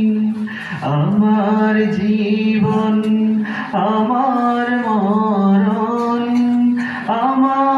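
A man singing a Bengali Islamic gazal (gojol) solo into a microphone, in long drawn-out phrases of held notes with wavering ornamental turns, broken by short breaths.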